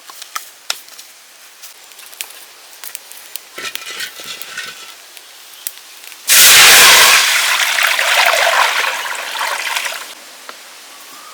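Water poured out in one sudden gush, loudest at the start with a splash, running for about four seconds and stopping sharply. Before it come light clicks and knocks of handling.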